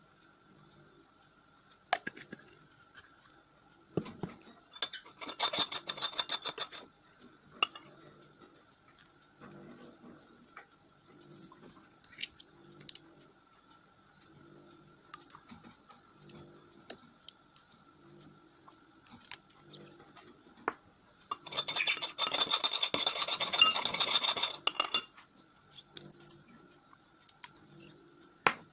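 A utensil scraping and clinking against a container while slime ingredients are mixed, with scattered light clicks, a short stretch of scraping about five seconds in and a longer, louder stretch near the end.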